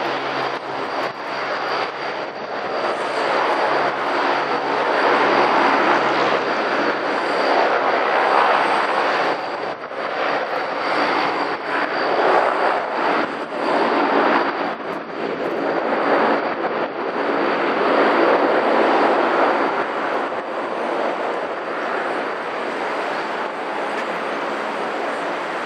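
The four Ivchenko AI-20 turboprop engines of an Antonov An-12 running as it taxis. A dense rushing engine noise swells and eases every few seconds, under a thin, steady high whine.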